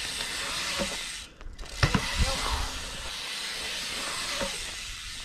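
Steady rushing hiss of a BMX bike's tyres rolling through a concrete skatepark bowl, mixed with wind on the microphone. The hiss drops out briefly about a second and a half in, and a couple of dull thumps follow.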